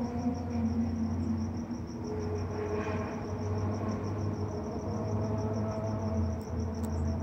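A cricket chirping in a steady, even pulse of about five chirps a second, over a continuous low hum with wavering tones.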